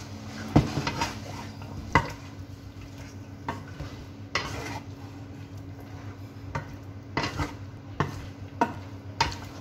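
Wooden spatula stirring chicken wings in a wok, knocking against the pan at irregular intervals, about one knock every second, over a light sizzle of frying and a steady low hum.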